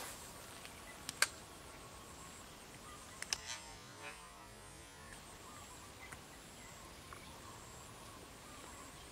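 Faint outdoor ambience at a weedy pond, with a few short, sharp sounds about a second in and again around three to four seconds in.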